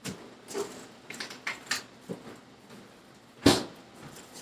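Kitchen handling noises: a few light clicks and clinks, then one sharp knock about three and a half seconds in.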